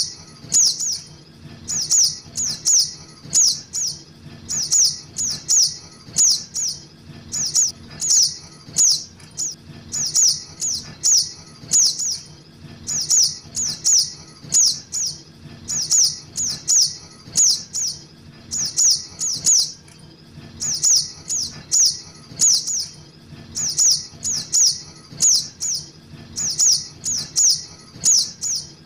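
Juvenile sogok ontong (little spiderhunter) calling: short, high notes falling in pitch, in quick clusters of two to four repeated about once a second. This is a lure call, used to draw the birds in.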